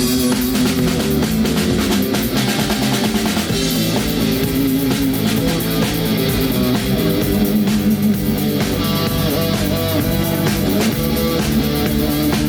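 Rock band playing live with electric guitar, bass and drum kit: an instrumental stretch of the song after the last sung verse.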